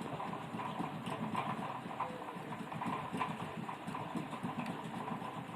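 Hot-air rework station blowing steadily on a TV circuit board, with a rapid, uneven clatter of small clicks over the air noise.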